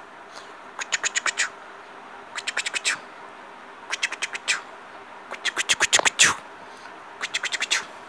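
Rapid sharp clicking chatter in five short bursts, each a quick run of clicks, with a brief rising squeak near the end of the fourth burst.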